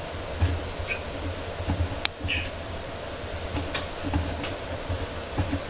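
Steady low background hum with a few light, scattered clicks and ticks, one sharper click about two seconds in.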